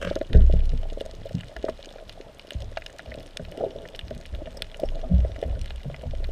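Water sloshing and gurgling against the camera at the surface, with scattered clicks and low thumps as the spearfisher moves. The loudest thumps come about half a second in and again about five seconds in.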